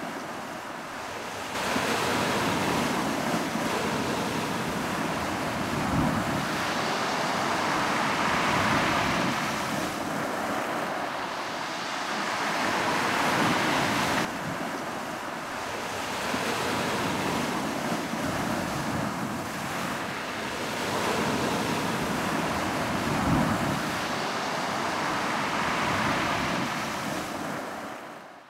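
Ocean surf: waves washing in and breaking, the rush of water swelling and receding every few seconds, fading out near the end.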